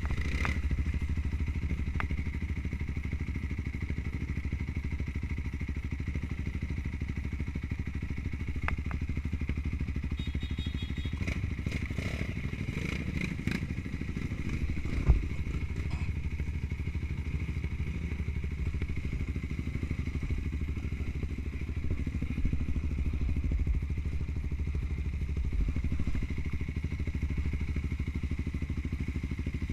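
Trail motorcycle engine running steadily, with some clatter a little before the middle and a single sharp thud about halfway through.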